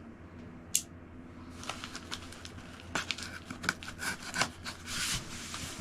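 A shipping package being opened by hand: a sharp click, then irregular rustling, scraping and crinkling of cardboard and packing material.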